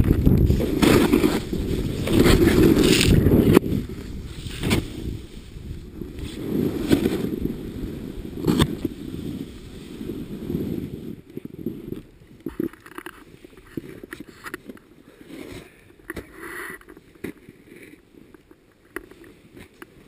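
Snowboard sliding through deep powder snow: a loud rushing scrape for the first few seconds, then quieter and patchier as the board slows, with short scuffs.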